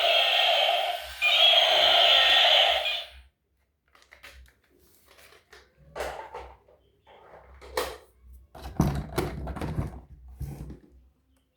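A toy's electronic sound plays as a loud steady tone, breaks briefly about a second in, and cuts off suddenly after about three seconds. Then come scattered clicks and a brief clatter of knocks from a plastic toy being handled.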